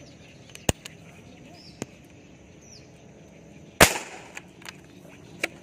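A single sharp air rifle shot about four seconds in, with a short ringing tail, preceded by a couple of faint clicks.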